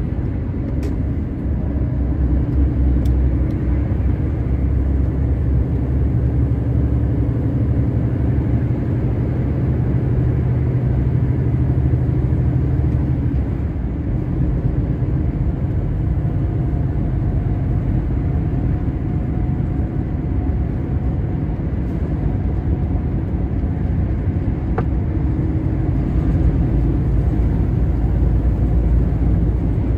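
Truck cab at motorway speed: the steady low rumble of the diesel engine mixed with tyre and road noise. The engine note changes about halfway through.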